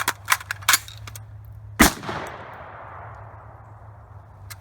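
A quick run of sharp metallic clicks and clanks, then about two seconds in a single loud shot from a Ruger SR556C 5.56 mm AR-15 rifle, with a long echoing tail. This shot ends a timed rifle drill.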